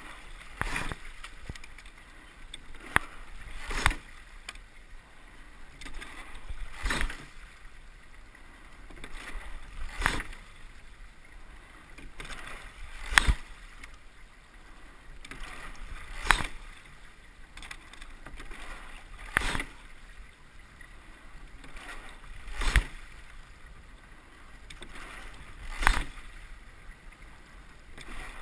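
Rowing pair under way at a steady stroke: a sharp knock from the oars and rigging about every three seconds, over water rushing along the hull.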